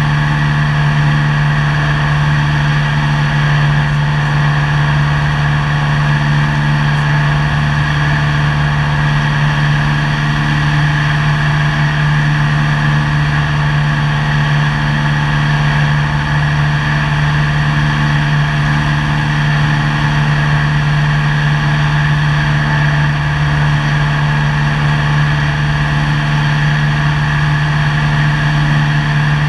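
Cessna 172's piston engine and propeller in flight, heard from inside the cabin: a loud, steady drone that holds the same pitch and level throughout.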